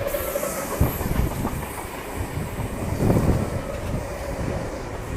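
A V set double-deck intercity electric train passing along a station platform, its wheels clacking over rail joints in a run of uneven low thuds over a steady rumble.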